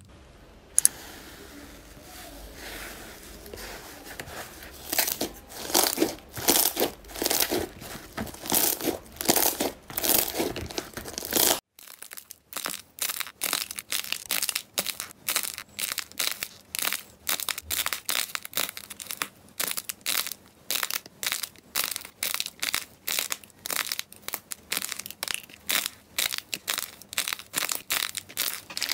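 Slime being squeezed and pressed, making crackling, crunching sounds: irregular at first, then, after a sudden change about twelve seconds in, a quick, even run of crackles about three times a second.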